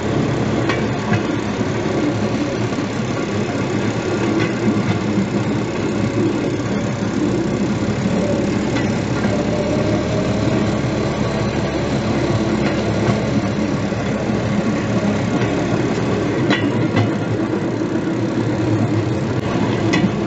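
Rail draisine running steadily along the track: a constant engine drone with the wheels rolling on the rails, and a faint click every few seconds as they pass over rail joints.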